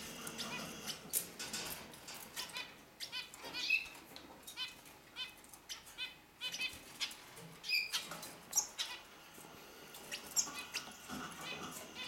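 Small caged finches, hooded siskins and canaries, chirping and twittering in quick series of short high notes, with wings fluttering.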